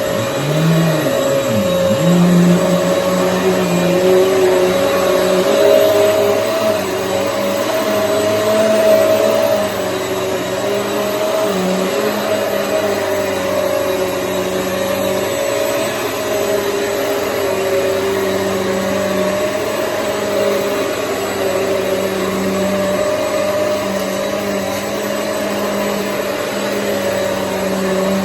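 Hoover EliteSwivel vacuum cleaner running steadily, its motor drone wavering slightly in pitch, dipping briefly in the first couple of seconds and getting a little quieter about ten seconds in.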